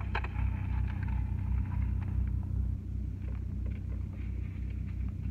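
Steady low rumble of a car heard from inside its cabin, with a few light clicks about the start.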